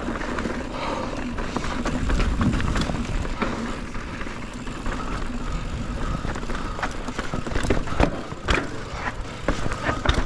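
Mountain bike riding down a rough dirt trail: a steady rush of wind and tyre noise, with frequent sharp clacks and rattles from the bike over rocks and roots, thickest in the last few seconds.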